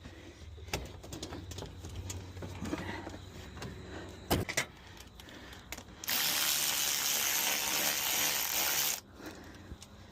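Scattered clicks and metallic knocks of tools and battery hardware being handled, then a loud, steady spray hiss that lasts about three seconds and cuts off sharply.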